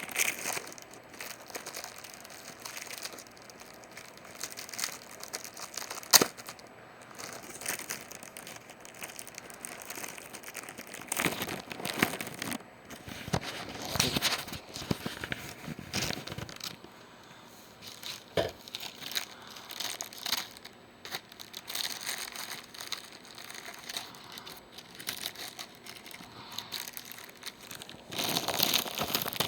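Toy packaging being worked open by hand: plastic and cardboard crinkling and tearing in irregular bursts, with a few sharp clicks, the loudest about six seconds in.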